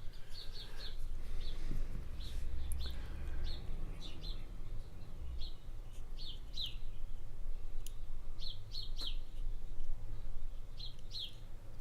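A small bird chirping over and over in quick runs of two or three short, high notes, with a couple of sharp clicks about eight and nine seconds in.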